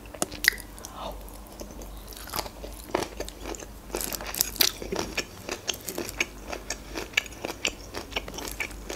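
Crunchy Korean-style carrot salad being chewed close to the microphone: many short, sharp crunches and wet mouth sounds.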